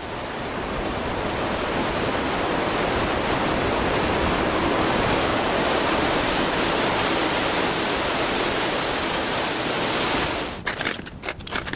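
Meltwater plunging down a glacier mill (moulin), a deep shaft in the ice, making a loud, steady rushing noise. About ten seconds in it cuts to the crunch of crampon footsteps on glacier ice.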